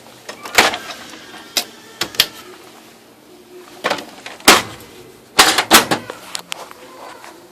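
Oki MB480 printer's mechanism making a run of irregular loud clunks and clicks, a sign of the unit jamming and faulting.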